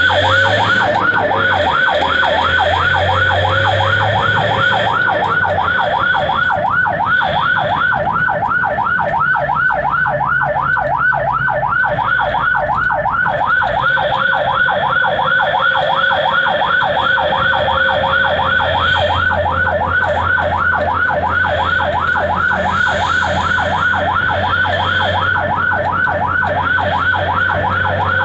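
Ambulance siren in a fast yelp, its pitch sweeping up and down about three times a second without a break, heard from inside the ambulance's cab over the low hum of its engine.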